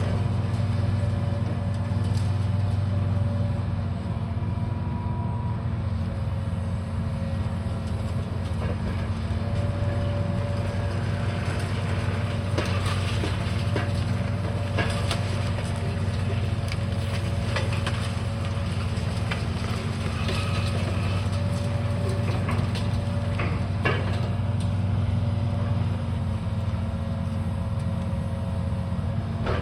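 Heavy demolition machine's diesel engine running steadily, with scattered knocks and cracks of debris being broken, mostly in the middle of the stretch.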